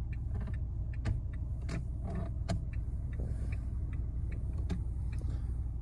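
Steering-column stalk switch of a 2024 Lada Vesta NG being worked, giving a string of irregular clicks and creaks over the steady low hum of the car. The owner is unsure whether this creak is normal or a defect for the dealer to fix.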